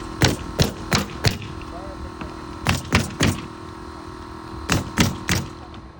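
Hammer driving nails into wood framing: three groups of sharp blows, four, then three, then three, about three a second.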